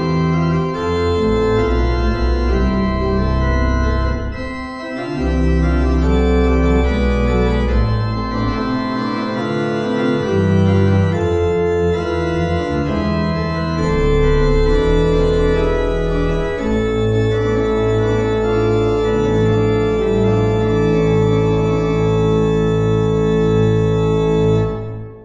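Church organ playing full sustained chords over deep pedal notes. Later a high note is held over a pulsing, repeated bass note, and the music cuts off abruptly near the end.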